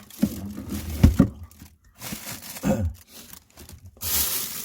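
Food containers knocking and being shifted about, then plastic bags crinkling loudly from about four seconds in, as containers are handled during a search through stored food.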